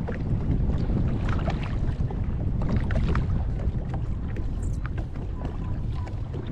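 Wind buffeting the microphone as a steady low rumble, with scattered short ticks and splashes over it.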